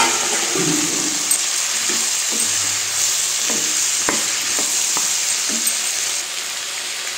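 Onions and tomato chunks sizzling in butter and ghee in a kadhai, with a wooden spatula stirring and knocking against the pan several times. The sizzle eases a little near the end.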